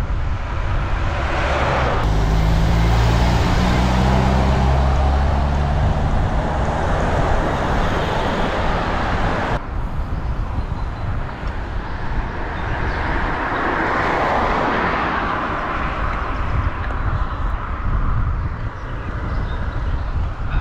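A semi-truck's diesel engine droning close behind over steady road and wind noise, its low drone strongest for a few seconds near the start. A second swell of traffic noise rises and fades about fourteen seconds in.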